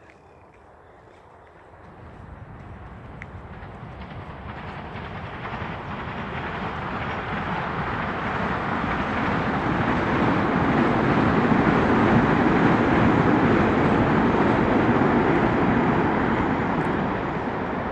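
A steady rumbling noise that swells loud over about ten seconds and eases slightly near the end, like a large vehicle such as a train approaching and passing close by.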